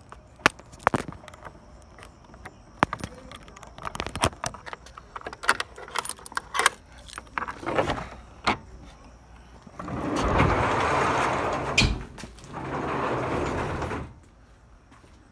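Keys jangling and a padlock clicking and rattling against a metal hasp while it is unlocked. Then come two loud stretches of scraping and dragging, about ten and twelve and a half seconds in, as the wooden garage doors are pulled open.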